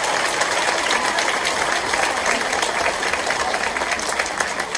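A large audience applauding in an auditorium: a steady mass of many hands clapping, which starts to thin out near the end.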